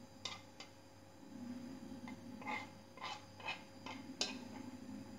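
Light, irregular clicks and taps of a spoon against a plate as chopped hard-boiled egg is pushed off onto a pizza, about eight in all.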